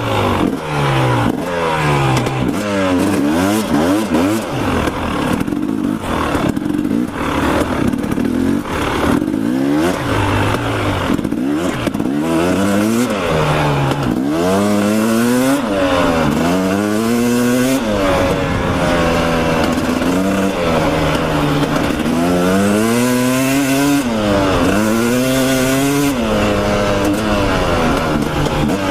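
Dirt bike engine being ridden on a trail, its pitch climbing and dropping again and again as the rider accelerates, shifts and rolls off the throttle.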